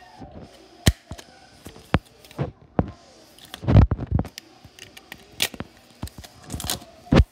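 A string of irregular sharp knocks and clicks, the loudest a cluster of heavier thumps about four seconds in and a hard knock near the end.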